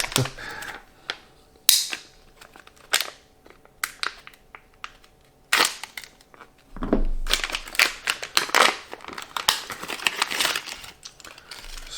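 Scissors cutting open sealed plastic packaging: a few sharp snips in the first half, then the plastic crinkling and crackling as it is pulled apart.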